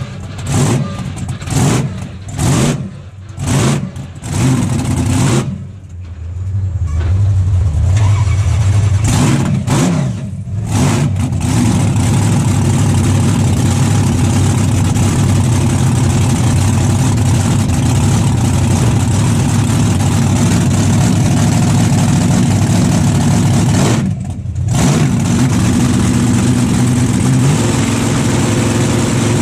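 A 1500 hp monster truck engine heard from inside the cab. It starts with a string of throttle blips, about one a second, for the first five seconds. Then it runs steadily at raised revs, dips briefly about three-quarters of the way through, and climbs in pitch near the end.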